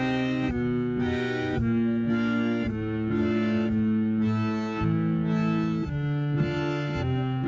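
Isolated organ tracks layered with fairground-organ tape-loop effects, playing held reedy chords that shift every second or so, with no vocals or drums.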